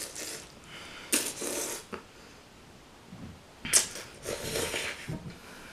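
Kimchi ramen noodles being slurped and chewed from chopsticks, in three noisy bursts with short quiet gaps between, the last the longest.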